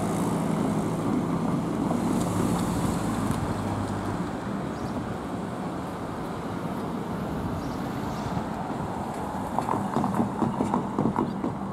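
Train running past, its rumble slowly fading, with a run of sharp wheel knocks on the rails near the end.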